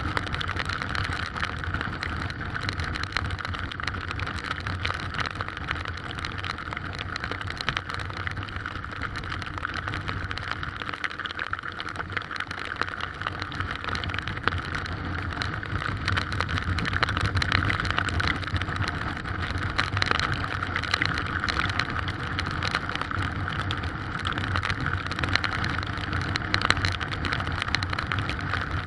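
Heavy rain falling in strong wind: a steady, dense rushing hiss with a low rumble underneath.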